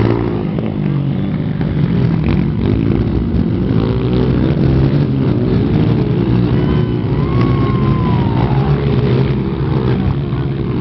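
Motocross dirt bike engines revving up and down as the bikes race, their pitch rising and falling continually.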